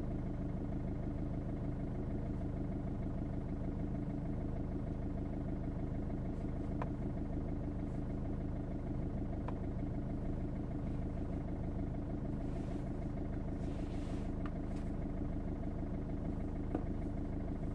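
Mercedes CLC220 CDI's four-cylinder common-rail diesel idling steadily, heard from inside the cabin, on a car that randomly stalls or fails to start. A few faint taps of a stylus on the diagnostic tablet's screen.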